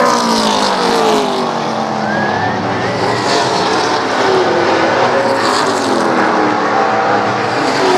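Several race car engines running at speed together, loud and overlapping, their pitches sliding up and down as the cars pass and change throttle.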